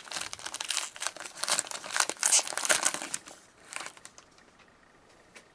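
Hockey card pack's wrapper crinkling and rustling as it is opened by hand for about four seconds, then thinning to a few light clicks and rustles.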